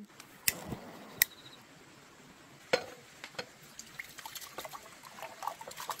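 Cookware handling at a small solid-fuel burner: three sharp clicks or knocks in the first three seconds, then a run of light scattered clinks and rattles near the end as rice is tipped from a bowl into a small pot.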